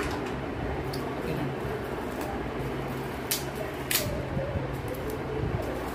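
A steady fan hum, with a few short crackles of shiny gift wrapping being worked open by hand about a second in and twice more past the middle.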